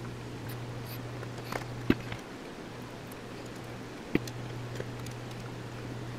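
Workbench handling sounds as the ignition module wiring is connected on a Husqvarna 240 chainsaw: small ticks and two sharp clicks about two seconds apart. A steady low hum runs underneath.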